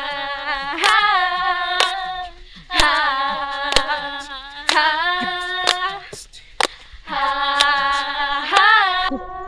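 Girls' voices singing long held notes without instruments, with a sharp hand clap about once a second.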